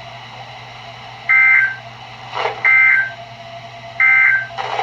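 NOAA Weather Radio end-of-message signal at the close of a severe thunderstorm warning, heard through a radio receiver: three short, harsh two-tone digital data bursts about 1.3 s apart. Two brief crackles of static from lightning break in between them.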